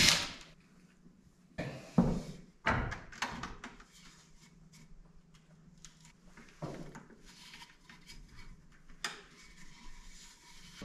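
A cordless drill stops right at the start. Then come scattered knocks, thunks and rustles of tools being handled and a person shifting about on a plywood deck, with the loudest knocks about two and three seconds in.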